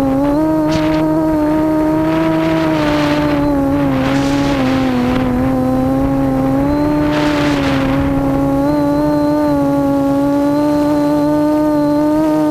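Quadcopter's brushless motors (Cobra 2213 2000kv) spinning 7x4 propellers in flight: a steady, loud hum whose pitch wanders slightly with throttle, with several brief rushes of air noise.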